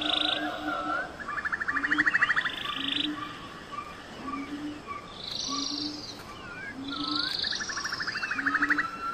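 Forest wildlife calls: a short low note repeating about once a second under higher chirps, with buzzy pulsed trills about two seconds in and near the end.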